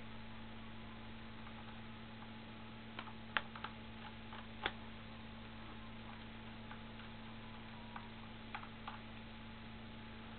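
Small screwdriver working the screws at the end of a laptop screen's hinge, giving scattered light clicks and ticks, a few at a time, over a steady low hum.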